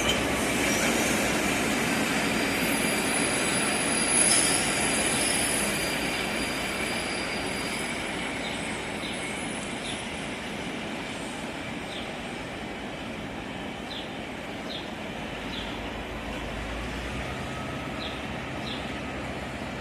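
EMD G16 diesel-electric locomotive's 16-cylinder engine running after a hard start. It is loudest for the first five seconds or so, with a brief surge about four seconds in, then eases down and runs on steadily.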